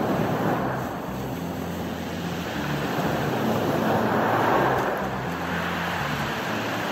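Ocean waves breaking and washing up a beach of rounded cobbles. A swell in the surge about four seconds in, over a low steady rumble.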